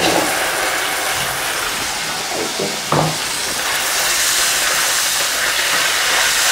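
Minced meat going into a hot oiled pan and sizzling: a loud, steady frying hiss that starts suddenly, with a knock of a utensil against the pan about three seconds in.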